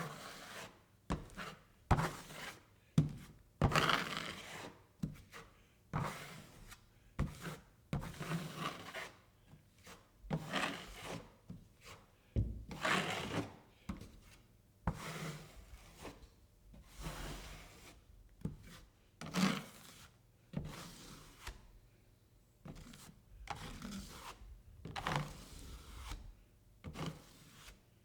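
Drywall knife spreading and scraping joint compound over the wall in repeated strokes, each a short rasping scrape with short gaps between, and a few sharp knocks among them.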